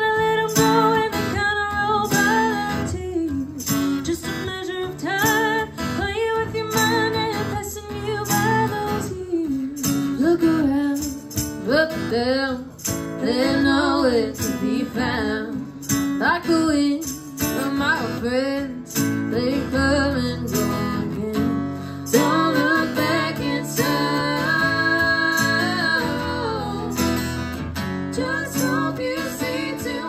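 Live music: a strummed acoustic guitar with women singing.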